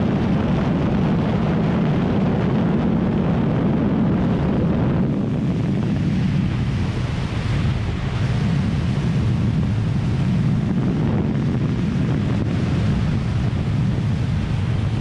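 Heavy wind rushing over the microphone of a BMW F 900 R motorcycle at top speed, around 230 km/h, over the steady drone of its parallel-twin engine. About five seconds in, the rush eases as the bike comes off full speed and slows.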